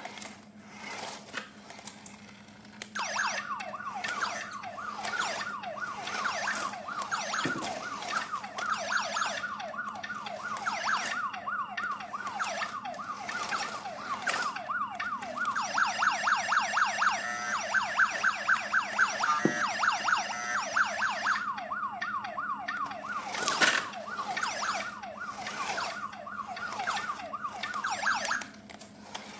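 Toy electronic police siren from an RC police truck, a fast yelping wail that starts about three seconds in and stops near the end, its pattern changing about halfway through.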